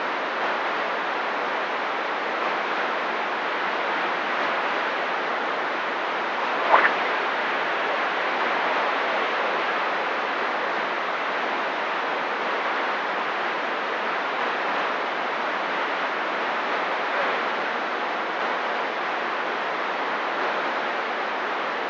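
Steady hiss of CB radio static from an open receiver with no one transmitting on the channel. A single short blip cuts through about seven seconds in.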